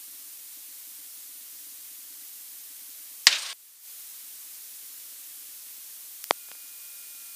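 Steady electronic hiss with a sharp, loud burst of static about three seconds in, after which the hiss briefly drops out. Near the end comes a short click, followed by two faint steady tones.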